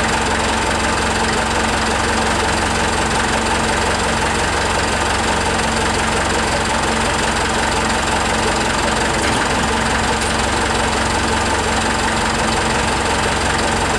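Forklift engine running steadily at an even idle.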